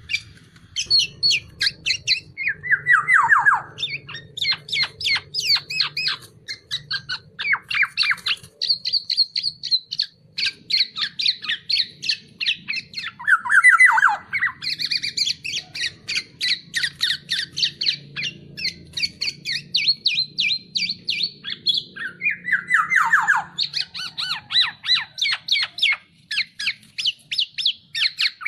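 Black-naped oriole (kepodang) calling noisily in rapid strings of harsh chattering notes, with a falling call three times.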